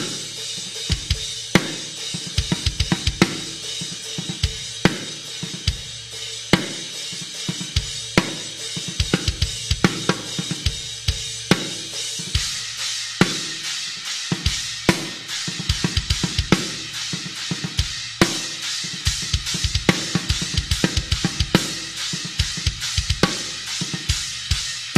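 Drum kit with Centent Mist Pro cymbals playing a busy groove: quick bass drum and snare hits under a steady cymbal wash that grows fuller about halfway through.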